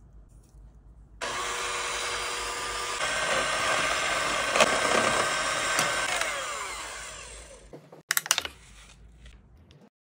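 Electric hand mixer running, its beaters whipping a chocolate mixture in a stainless steel bowl. It starts suddenly about a second in, runs steadily, then fades out, and a few sharp clicks follow about eight seconds in.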